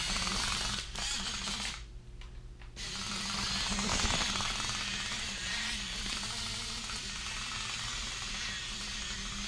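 Small electric propeller motors of an Air Hogs Star Wars remote-control Speeder Bike whirring as the toy flies, stopping for about a second about two seconds in and then starting again.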